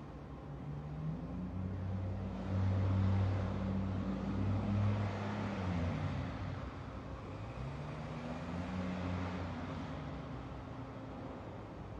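Military hovercraft's engines and ducted propellers running as it moves through spray, a low steady hum. The hum grows louder a couple of seconds in, dips in pitch around halfway, then rises again, over a noisy wash of water and air.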